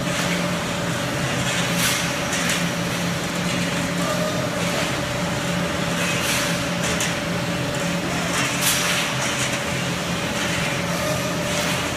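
ERW steel tube mill line with a flying cold saw cut-off running: a steady machine hum with a constant mid-pitched tone, and short hissing, clattering bursts every one to two seconds.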